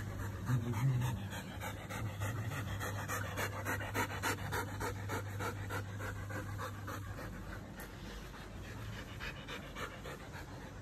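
Standard poodle panting close by, in quick, even breaths that fade after about seven seconds.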